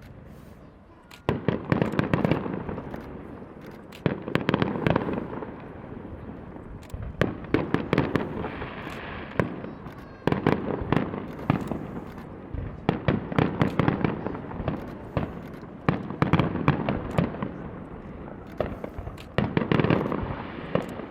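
Fireworks display: aerial shells bursting in rapid salvos, with loud booms and sharp cracks coming in clusters about every three seconds.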